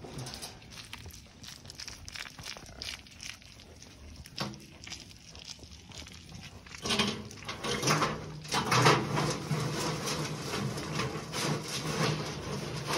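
Footsteps crunching in snow among livestock pens. About seven seconds in, a louder, rougher noise sets in, with a low steady drone under it to the end.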